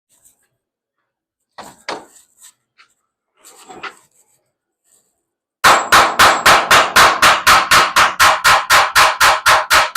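A few faint handling clatters, then from just past halfway a hammer striking metal in quick, even blows, about four or five a second.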